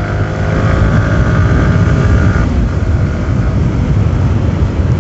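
Yamaha R15 V3's single-cylinder engine running under way, its pitch rising steadily over the first two to three seconds as the bike gathers speed, over a heavy low rumble.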